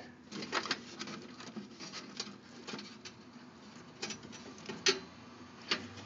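Irregular clicks, taps and light knocks of cables and plastic connectors being handled inside a desktop computer case while a power cable is fitted to a solid-state drive. The sharpest clicks come near the end.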